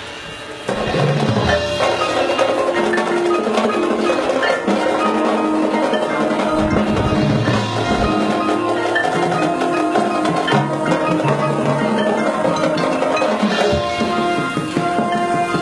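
High school marching band playing, with mallet percussion such as marimba and xylophone and drums prominent. The full ensemble comes in loudly less than a second in, after a quieter moment.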